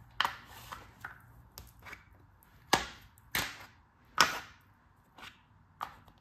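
Silicone sand molds being lifted off moulded kinetic sand and handled: a series of about ten sharp taps and clicks, the loudest about a quarter second in, near three seconds and near four seconds.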